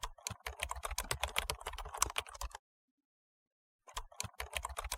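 Fast typing on a mechanical keyboard with clicky Kailh Blue switches, the MSI Vigor GK50 Elite: a quick run of key clicks for about two and a half seconds, a pause of over a second, then more typing near the end.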